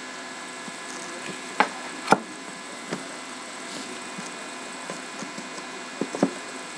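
Trading cards being handled on a table: a few light taps and clicks, about five, over a steady electrical hum.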